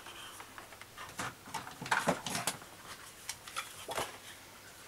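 Sheet of cardstock rustling as it is lifted and turned over, with a scattering of light clicks and taps.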